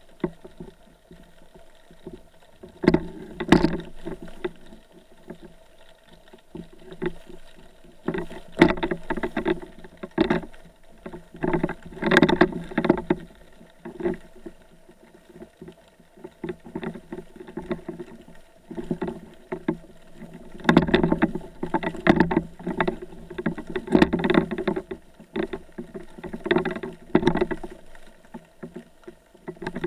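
Muffled, irregular sloshing and splashing of water, heard underwater through a waterproof camera housing, with a few sharp knocks. The surges come and go unevenly, several of them loud, without any regular beat.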